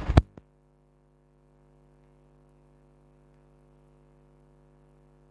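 A sharp click just after the start, then near silence: faint, steady room tone with a low electrical-sounding hum.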